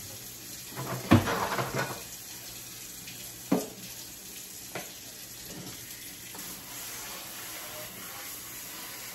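Kitchen faucet running into a stainless sink during hand dishwashing. Dishes clatter loudly about a second in, with a single sharp knock a couple of seconds later.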